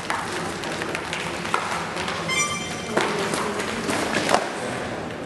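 Scattered knocks and taps over a steady background hiss, with a brief high tone a little past two seconds in.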